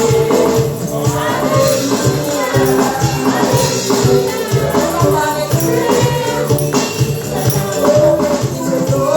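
Live gospel praise-and-worship music: a church band playing with a tambourine shaken in steady rhythm.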